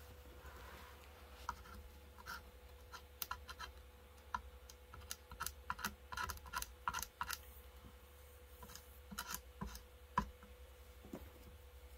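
Irregular light clicks and scratches of a plastic welding iron's tip scraping and tapping against a plastic office-chair armrest as the broken joint is worked, over a faint steady hum.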